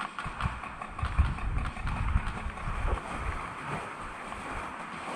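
Low rumbling buffeting on a body-worn camera's microphone as the wearer moves through tall weeds, over a steady hiss; the rumble eases about three seconds in.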